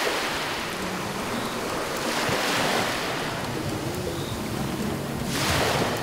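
Ocean surf, waves breaking and washing in, swelling three times about every two and a half seconds.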